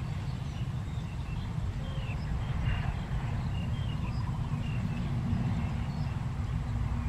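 Scattered short bird chirps over a steady low rumble.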